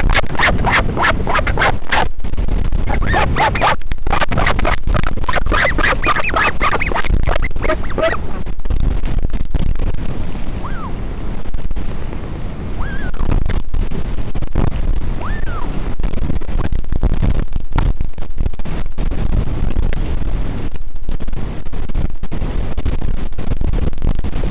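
Northern royal albatross chick and parent calling to each other: rapid pulsed calls in two bouts over the first eight seconds or so, then only a few faint short peeps. Heavy wind noise on the microphone runs under it all and is the main sound once the calling stops.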